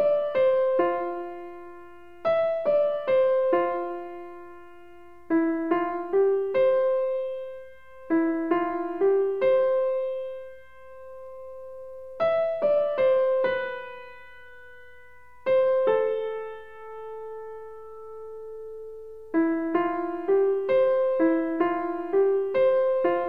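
Background music: a gentle piano melody played in short phrases of a few notes, with brief pauses and held notes between the phrases.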